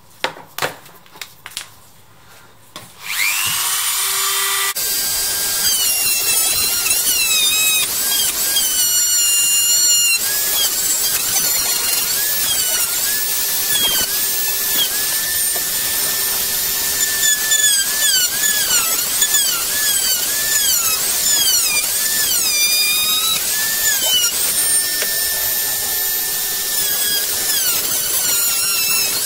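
A few light clicks and taps, then about three seconds in a handheld rotary tool fitted with a small cut-off disc spins up with a rising whine. It cuts a hole in the RC jet boat's hull, its pitch dipping and recovering again and again as the disc bites and eases off.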